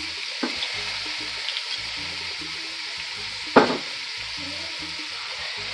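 Sofrito sizzling steadily in hot oil in a metal pan, with one brief louder spike about three and a half seconds in as balsamic vinegar goes into the hot oil.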